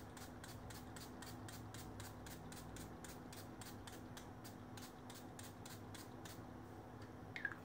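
Fingers gently rubbing back and forth along a strip of water-dampened chipboard on a cutting mat: faint quick swishes, about five a second, stopping about six seconds in.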